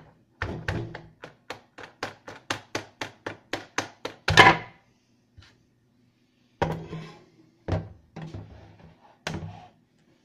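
Plastic monitor casing and stand being handled: a quick run of sharp clicks, about four a second, then a loud knock. Several duller knocks follow as the LCD monitor is laid face down on a wooden desk.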